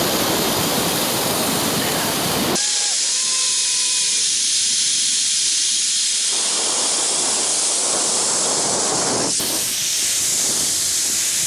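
Loud, steady rush of wind and a zipline trolley running fast along its steel cable, with faint whistling tones now and then. About two and a half seconds in the sound changes abruptly: the low rumble drops away and a thinner, higher hiss takes over.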